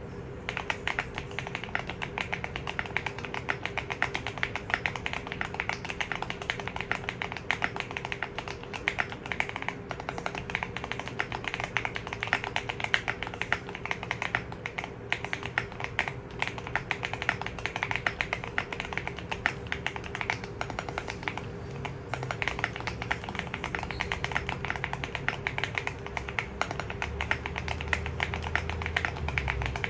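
Fast, continuous typing on a Keychron Q1 mechanical keyboard with Baby Kangaroo V2 tactile switches, a PC plate, TX stabilizers and case and PE foam mods, giving a muted, creamy clack. The keystrokes start just after the beginning and keep going without a break.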